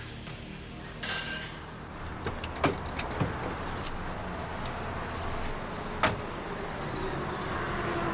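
A vehicle door being opened and shut, with a few sharp knocks, over a steady background hiss that grows louder near the end.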